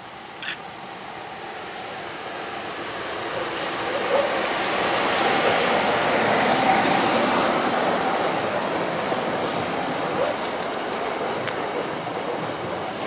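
A Koleje Dolnośląskie 45WE electric multiple unit (Newag Impuls) passing close by. Its running noise from wheels and motors swells to a peak about six seconds in, then slowly eases as the cars roll past.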